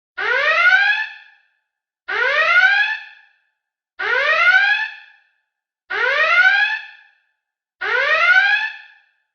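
Star Trek red alert klaxon sounding: a rising whoop of about a second, repeated five times at even two-second intervals.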